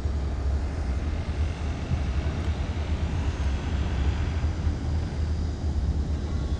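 A steady low rumble with a lighter hiss above it, no distinct events.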